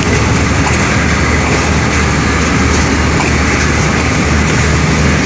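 Green Line Express passenger train heard trackside: a loud, steady rumble with a low hum underneath.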